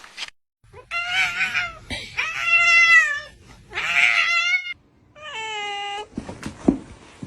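Domestic cat meowing four times in long, drawn-out calls whose pitch bends up and down, the last one sliding downward. A few short knocks follow near the end.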